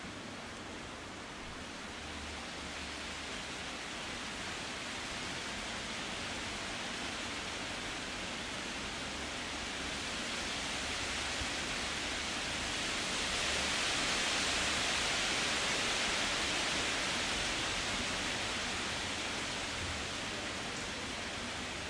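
Wind blowing through forest trees: a steady rushing noise that builds gradually to a peak about two-thirds of the way through, then eases off.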